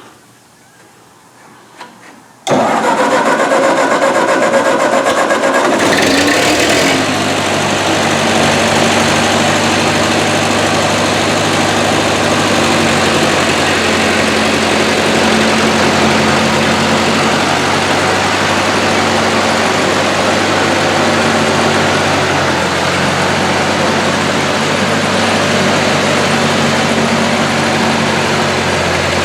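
Ford 8N tractor's four-cylinder flathead engine starting about two and a half seconds in, running a little faster for a few seconds, then settling into steady running.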